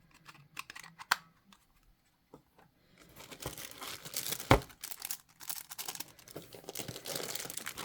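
Packaging crinkling as accessories are unwrapped: a few light clicks and rustles at first, then steady crinkling from about three seconds in, with one sharp snap partway through.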